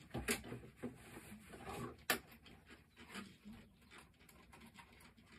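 Scattered light knocks and clicks of things being handled in a small room, with one sharp click about two seconds in.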